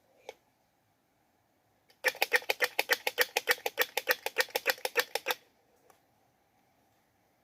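Squirrel giving its mating call: a rapid chattering run of sharp notes, about ten a second, lasting about three seconds and starting some two seconds in.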